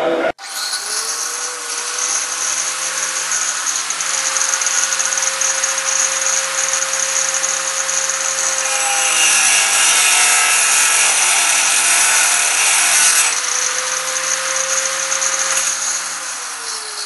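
Handheld electric power tool, a drill-type motor, spinning up, running steadily at speed, and winding down near the end. Its note drops out and the sound gets hissier for a few seconds in the middle.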